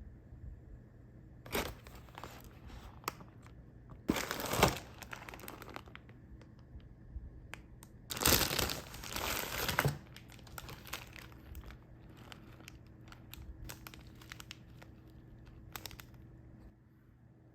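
Packaging crinkling and tearing as a monja-yaki cooking kit is opened by hand: short bursts about a second and a half and four seconds in, a longer stretch of crinkling around eight to ten seconds in, and scattered small crackles and clicks in between.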